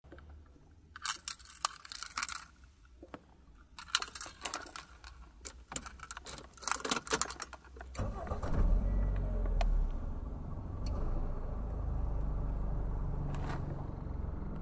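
Car keys jangling in three short bursts of metallic clinks. About eight seconds in, a car engine starts and settles into a steady running rumble.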